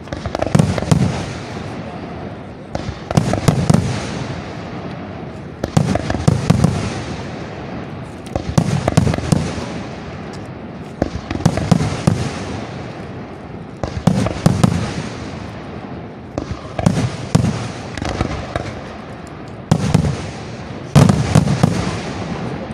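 Aerial firework shells bursting in a steady series of volleys. About every three seconds a cluster of a few sharp bangs goes off, each cluster fading away in a low rolling rumble.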